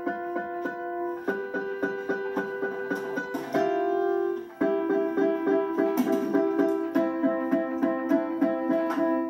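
Electronic keyboard being played, notes struck one after another several times a second over held notes that ring together, with a short break a little past the middle.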